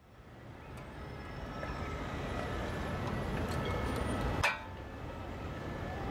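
Steady city street and traffic noise fading in from silence over the first couple of seconds, with one sharp click about four and a half seconds in.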